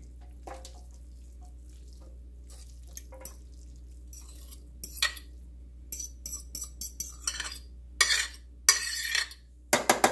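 A utensil scraping meatloaf mixture out of a mixing bowl into a loaf pan: scattered scrapes and clinks of utensil on dish, sparse at first and busier in the second half, with the loudest clatters near the end.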